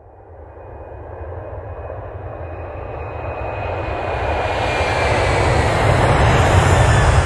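Rushing, rumbling noise with a deep low end, swelling steadily louder, with a faint high whine gliding slowly down.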